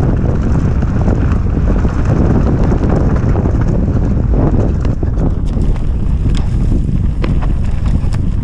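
Wind buffeting the microphone of a mountain bike's ride camera on a dirt singletrack, with the rumble and rattle of the bike over the trail. From about five seconds in, sharp clicks and ticks stand out.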